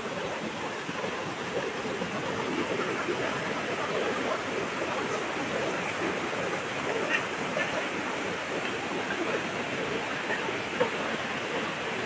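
Waterfall: a steady rush of water pouring down onto rock.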